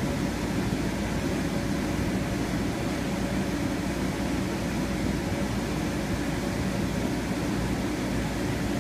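The electric blower fan of an inflatable bounce house running steadily: a constant low rushing noise.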